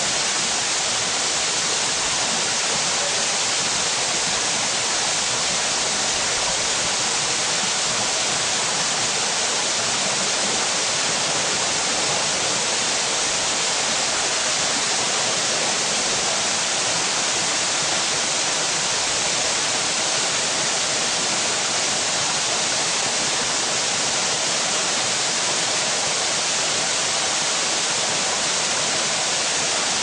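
Waterfall pouring steadily into a rock pool: a constant, even rush of falling water.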